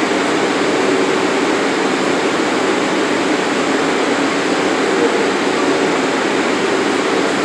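New York City Subway R62A train standing in the station with its doors open, giving off a steady rushing hum from its onboard air-conditioning and equipment.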